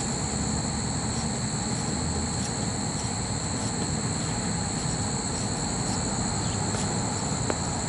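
Steady high-pitched insect buzz from crickets or cicadas, with a low rumble underneath and a faint click about seven and a half seconds in.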